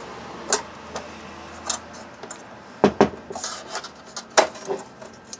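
A thin metal pick scraping and prying at the edge of a portable speaker's front grille, with a handful of sharp clicks and clacks as the grille's edge is worked loose. The loudest click comes about three seconds in, followed by a brief scrape.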